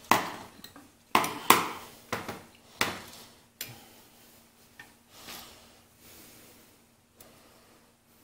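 Sharp metallic taps and knocks of a small hammer against a Clinton small engine's housing as the spark plug wire is worked loose: about five strikes in the first three seconds, then softer handling noises.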